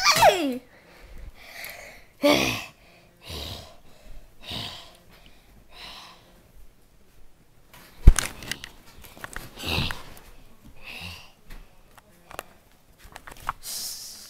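A person's short breathy huffs and sniffs, coming irregularly about once a second, with a sharp knock about eight seconds in.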